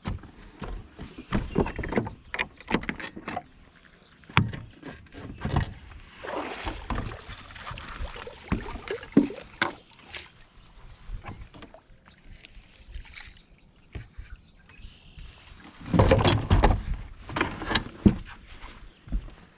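Scattered knocks and clunks of gear being handled on a fishing boat, with rustling, and a louder low rumbling burst about sixteen seconds in.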